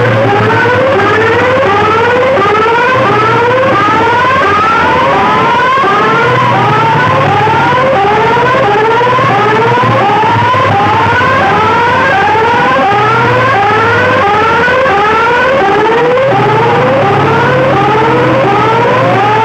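Loud electronic siren effect played through a DJ sound system: rising sweeps repeating about twice a second, with a slower wailing tone drifting above them and a low bass tone stepping between notes underneath.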